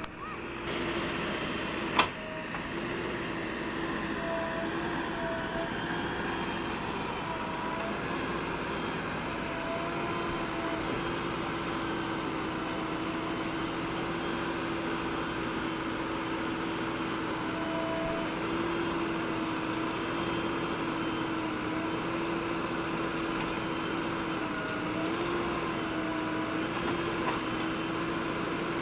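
Backhoe loader engine running steadily with a constant whine, and a single sharp click about two seconds in.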